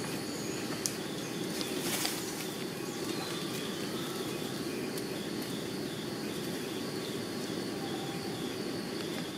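Outdoor background noise: a steady low rumble, with a faint high chirp repeating about twice a second and a brief rustle about two seconds in.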